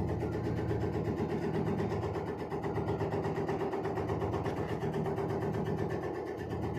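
Automatic tobacco shredding machine running steadily, a continuous mechanical hum with a fast, even chatter.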